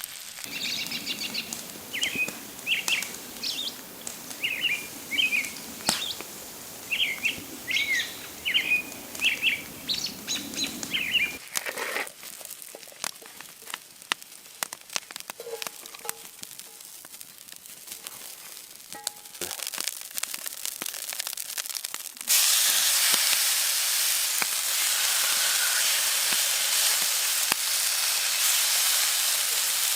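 Birds chirping with short repeated calls, then faint scattered crackling. About two-thirds of the way in, a loud steady sizzle of food frying starts abruptly.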